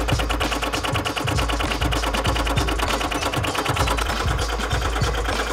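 Milling machine running a 4-inch face mill with only one insert at about 500 RPM, the lone insert hammering against the vise jaw face at about eight strikes a second as it cuts a swirl knurl pattern.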